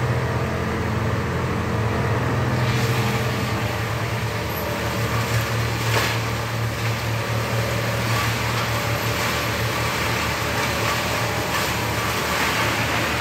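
Bucket truck engine idling with a steady low hum. A steady hiss joins about three seconds in.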